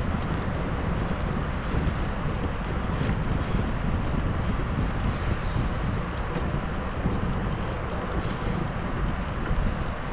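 Steady wind rush buffeting a GoPro Hero7's microphone as a bicycle rolls along a road at speed, mixed with the hiss of the tyres on asphalt.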